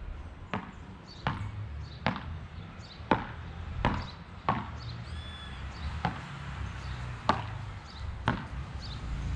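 Beach tennis paddles hitting the ball back and forth in a fast rally of volleys: a sharp pop with each hit, about a dozen hits spaced well under a second apart.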